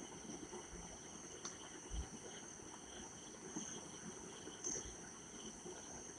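Metal spatula stirring onions and garlic paste frying in an aluminium kadhai, with a soft knock of the spatula against the pan about two seconds in and another near five seconds. Under it runs a faint, steady, high chirring.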